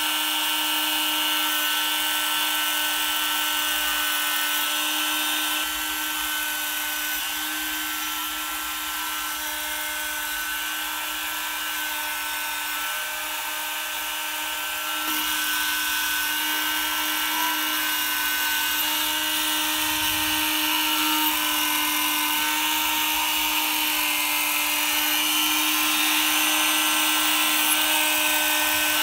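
Proxxon rotary tool serving as the spindle of a small 3D-printed CNC mill, running at high speed with a steady whine while its bit engraves plywood.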